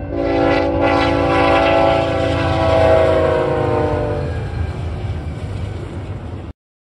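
Freight locomotive air horn sounding a steady chord as a BNSF double-stack intermodal train passes a grade crossing. The chord drops in pitch as the locomotives go by, three to four seconds in, then fades into the rumble of the passing well cars. The sound cuts off suddenly near the end.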